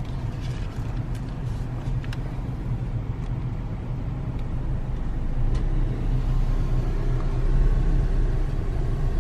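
Car running, heard from inside the cabin: a steady low engine and road rumble with a few faint ticks.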